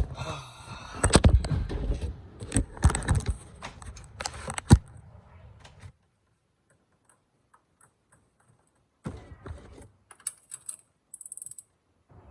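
Clicks, knocks and rattles of hand work on engine parts while coil packs are being fitted, dense for the first six seconds, then a few more clicks around nine to eleven seconds in.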